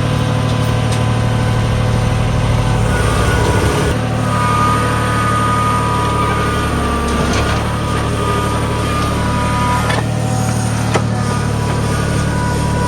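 Tractor diesel engine running steadily at raised throttle while powering a backhoe attachment digging mud; its note dips briefly about seven seconds in.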